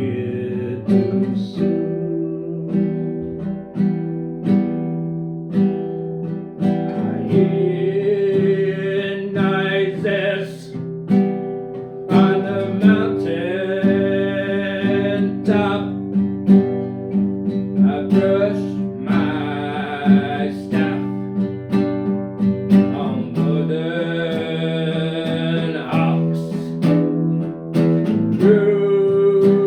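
A song with strummed acoustic guitar, a voice coming in and out in long phrases over it.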